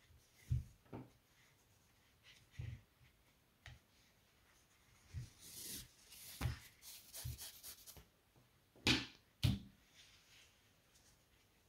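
Thick cotton cord faintly rustling and scraping as it is drawn through crochet stitches with a large crochet hook, with soft handling bumps and a scratchier stretch in the middle. Two sharper knocks come about three quarters of the way in.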